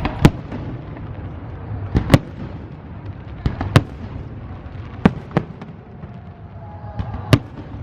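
Fireworks display: sharp aerial shell bangs, several in quick pairs, every second or two over a continuous low rumble.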